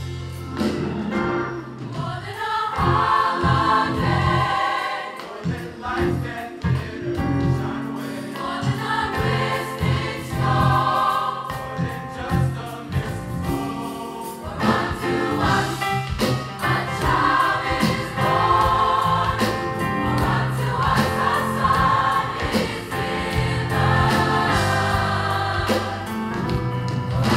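A large mixed choir of men's and women's voices singing in parts, over a low instrumental accompaniment with a beat.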